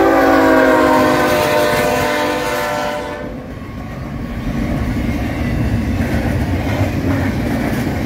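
Freight locomotive's multi-chime air horn sounding a long chord that drops slightly in pitch as the engine passes and stops about three seconds in. Then the rumble and clatter of double-stack container cars rolling by.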